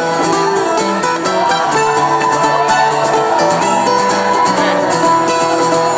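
Acoustic Irish folk band playing an instrumental passage with no singing. Plucked strings keep time under long held melody notes, some of which slide in pitch.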